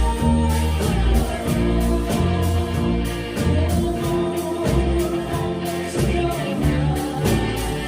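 A live band playing a song, with a singer's voice over the band and strong bass notes.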